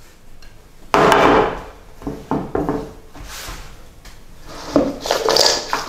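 A large ceramic plate set down on a wooden cutting board: a loud knock about a second in, then several lighter knocks and scrapes as it is shifted into place.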